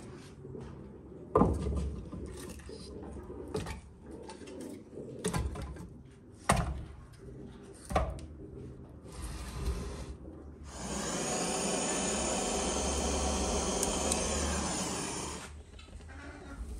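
Split firewood logs knocking against each other and the brick floor as they are stacked in a wood-fired brick oven, a sharp knock every second or two. Then a steady hiss for about five seconds.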